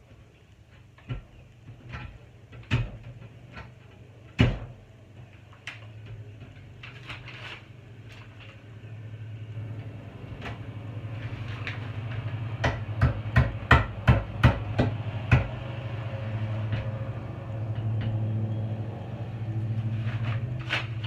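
A series of sharp knocks and taps, with a quick run of strikes about two-thirds of the way in, over a low steady hum that builds up from about halfway.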